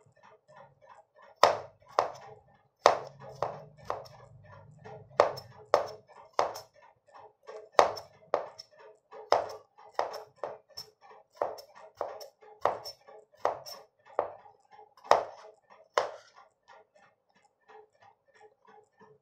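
Chef's knife finely chopping onion on a wooden cutting board: sharp knocks of the blade against the board, about one to two a second, with lighter taps between. The strokes grow fainter and sparser near the end.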